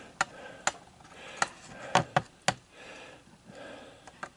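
Sharp clicks and light knocks of things being handled and set down on a workbench, about eight of them at irregular spacing, with two close together near the end.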